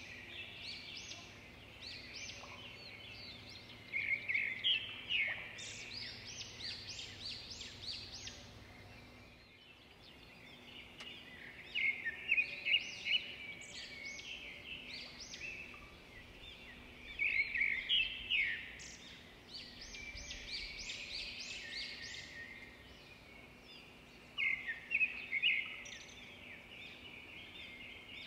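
Small birds chirping and twittering in quick, overlapping calls that come in bouts of a few seconds. A faint steady hum runs beneath.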